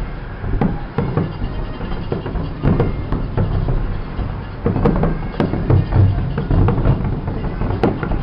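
Fireworks going off: an irregular run of sharp bangs and cracks over a low rumble, thickest from about five to seven seconds in.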